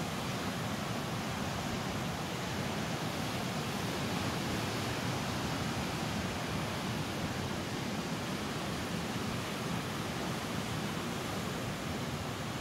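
Steady rushing noise of strong wind and breaking surf on a rough sea.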